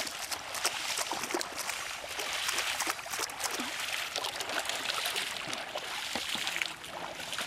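Pond water splashing and sloshing as people wade through it and slap the surface with their hands: a steady wash with many short splashes.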